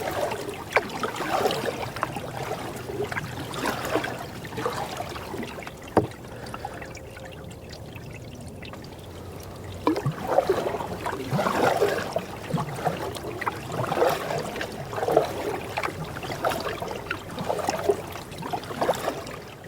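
Canoe paddle strokes through river water, a splash and trickle of dripping water about once a second, stopping for about three seconds midway and then resuming. A single sharp knock sounds about six seconds in.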